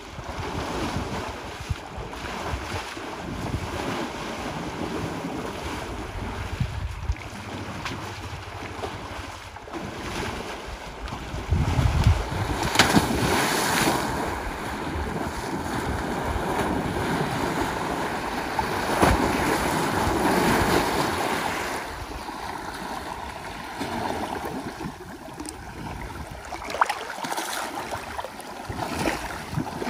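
African elephant splashing and wading through water, the water churning and sloshing around its body, with louder surges of splashing about midway through.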